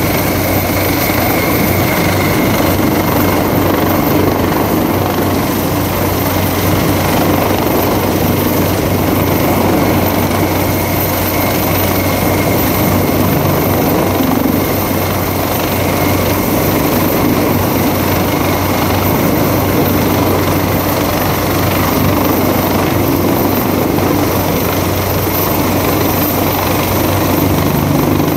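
Coastguard search-and-rescue helicopter hovering close overhead, its rotors and turbine engines running with a loud, steady noise and a low hum that does not change.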